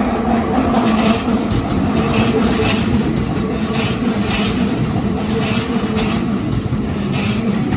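Keikyu Line electric train passing close by over the level crossing: a loud, steady rumble of wheels on rail with repeated clacks.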